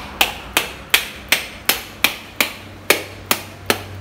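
A dry coconut struck again and again with a machete, about ten sharp knocks at two or three a second, cracking its hard shell open.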